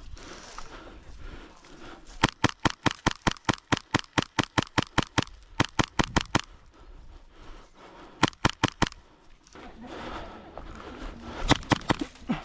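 Airsoft replica rifle firing close by in rapid bursts, about seven shots a second: a long burst of roughly four seconds, then two short bursts.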